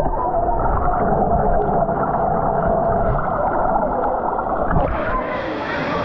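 River water heard through a submerged camera microphone: a muffled, bubbling rumble with the high sounds cut off. The clear, full sound of the river returns about five seconds in as the microphone comes out of the water.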